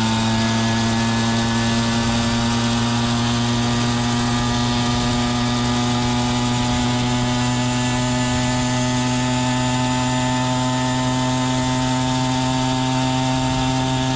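Peugeot 103 moped's small air-cooled two-stroke single running at high revs under way: a steady buzz whose pitch creeps slightly upward as it gathers speed. The engine is running well.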